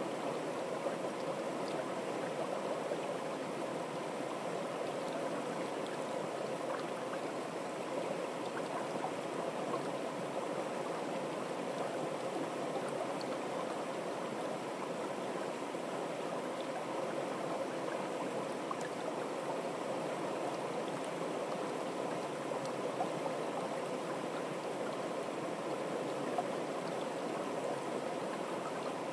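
Small, fast-flowing stream: a steady, even rush of running water with no let-up.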